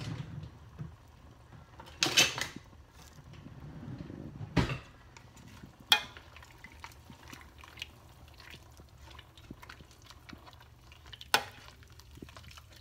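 A stirring spoon clinking and scraping against a stainless steel stockpot as water, meat and herbs are stirred together: a short clatter about two seconds in, then a few single sharp clinks.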